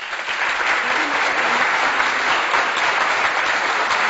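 Loud, steady applause from a clapping crowd, starting abruptly just before and running on without a break.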